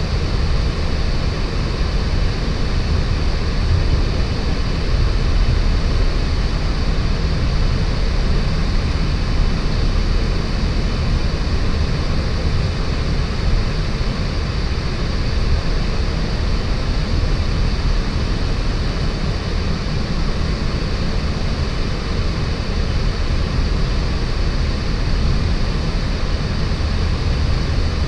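Steady flight-deck noise of a Boeing 737-800 in flight: an even rush of air over the cockpit and engine noise, strongest in the low end and unchanging throughout.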